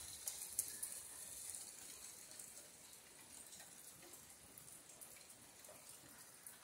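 Near silence: faint shop room tone and hiss, with a few faint ticks in the first second.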